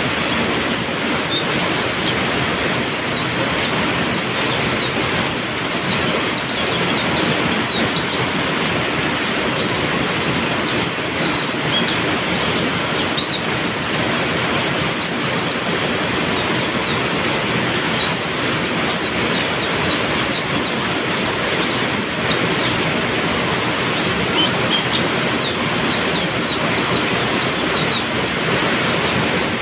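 Heavy rain falling in a steady, even hiss, with small songbirds calling over it in many short, high chirps.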